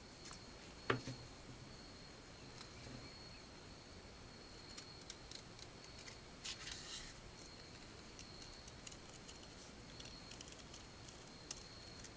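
Scissors snipping through a paper note card: faint, scattered snips and clicks, with a sharper click about a second in and a brief rasp of the blades midway.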